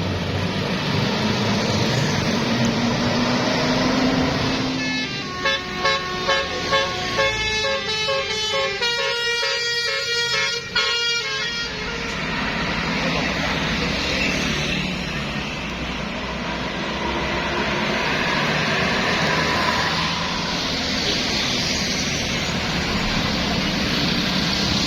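A bus telolet horn, the multi-tone musical horn of a tour bus, plays a quick tune of short stepped notes for about six seconds, starting about five seconds in. Under it runs the steady noise of bus engines and road traffic.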